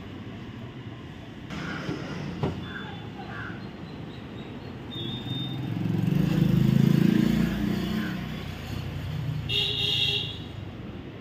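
Road traffic noise: a vehicle passes, loudest about six to eight seconds in, and a short high horn toot sounds near the end.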